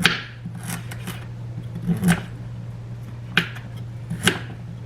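A kitchen knife slicing through tender raw sweet potato onto a cutting board: about five separate cuts at an uneven pace, each a short sharp knock.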